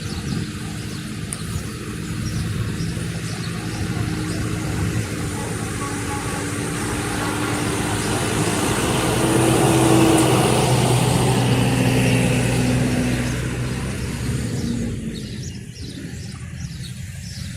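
A car driving past: engine and tyre noise build up to a peak about ten seconds in, then fade away as it moves off.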